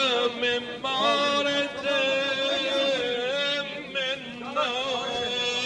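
A man's voice chanting or singing a slow melody, with long held notes that waver and slide between pitches.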